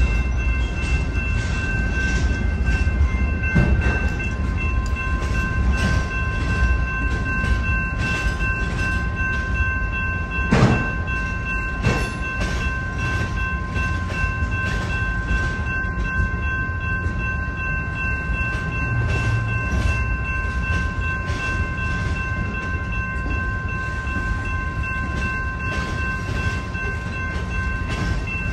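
Freight train rolling slowly past: a steady rumble of railcar wheels on the rails with irregular clicks as wheels cross rail joints, two louder clanks near the middle, and a steady high-pitched whine.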